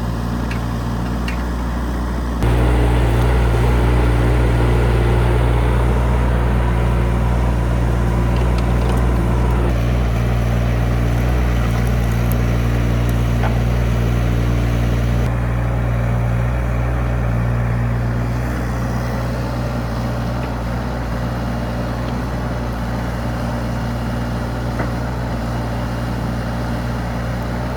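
Diesel engine of a 2.2-tonne UHI UME22 mini excavator running steadily. It gets suddenly louder about two seconds in and settles back down after about fifteen seconds.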